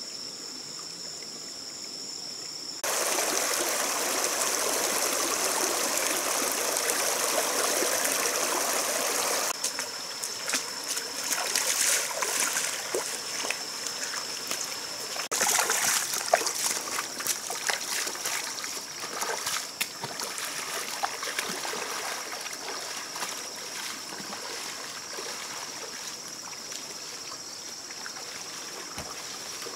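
Shallow rocky stream running and trickling, starting loud about three seconds in, with scattered splashes of feet wading through the water.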